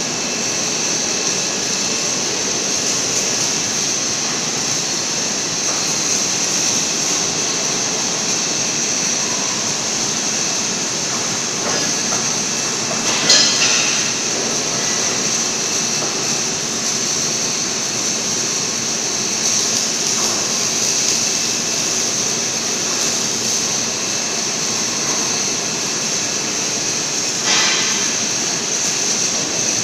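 Steady machinery noise with a strong high hiss from a two-torch gantry submerged-arc beam welding machine running on a steel-beam line. Two brief metallic knocks stand out, one about halfway through and one near the end.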